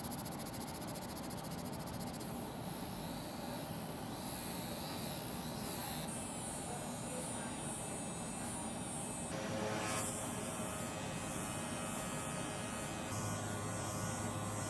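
Small electric power tool buzzing steadily as it works on the metal parts. Its sound changes abruptly several times, as from edit cuts in the restoration footage.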